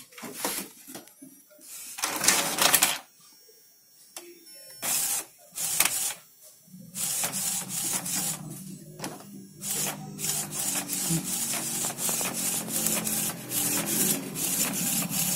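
Epson L380 inkjet printer making a colour copy. A few separate noisy mechanical bursts come first, then from about seven seconds in a steady motor hum with rapid ticking as the print-head carriage shuttles back and forth printing.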